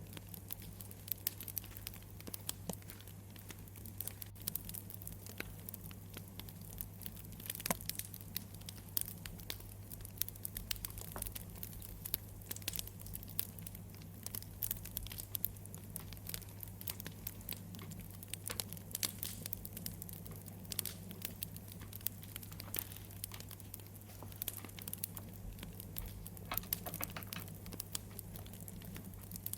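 Wood fire crackling, with irregular sharp pops and snaps over a low steady hum.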